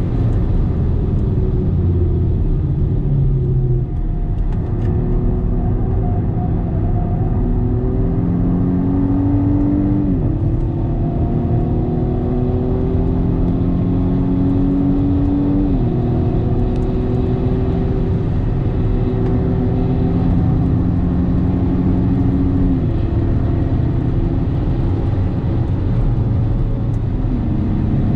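BMW M135i xDrive (F40) turbocharged four-cylinder under hard acceleration, heard from inside the cabin: its pitch climbs slowly through the gears and drops sharply at each upshift, several times, over steady tyre and road noise.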